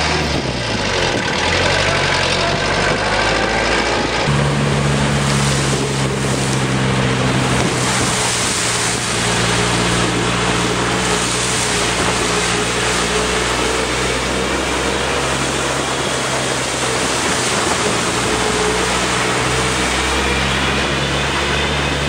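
An old four-wheel-drive jeep's engine running, its pitch rising and falling as it revs in the first few seconds and again near the end, mixed with background music.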